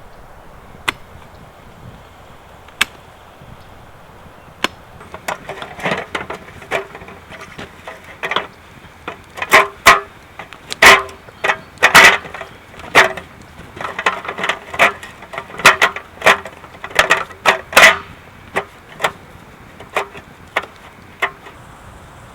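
A series of irregular sharp knocks or strikes: a few scattered ones at first, then coming quickly, one to three a second, from about five seconds in until near the end, some of them very loud.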